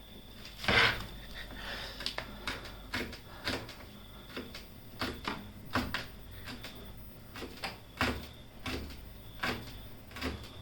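A kitchen knife striking a cutting board in uneven strokes as vegetables are cut, about one or two knocks a second.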